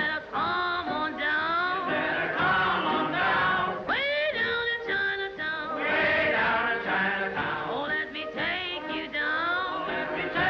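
Cartoon soundtrack music with several voices singing together, some notes sliding up and down in pitch.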